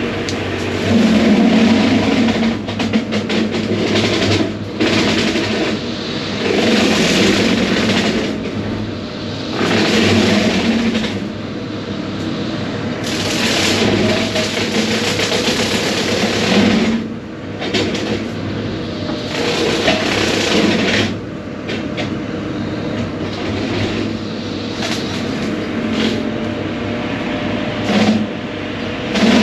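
Case 140 excavator running hard with a hydraulic brush-cutter attachment, which chews through brush and small trees in repeated rough bursts of one to a few seconds over the steady engine and hydraulic drone.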